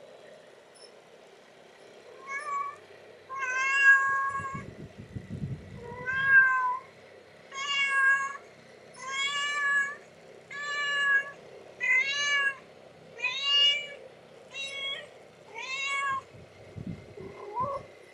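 Ten-day-old kittens mewing: a series of about eleven high-pitched mews, starting about two seconds in and coming roughly one every second and a bit.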